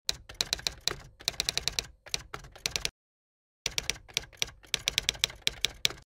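Typewriter keystroke sound effect: rapid clicking keystrokes in two runs, with a short pause about halfway.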